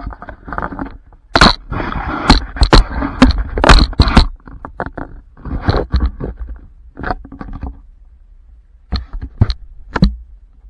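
Handling noise on the action camera: scraping and sharp knocks against the camera close to its microphone. They come densely for a few seconds about a second in, then as scattered single knocks.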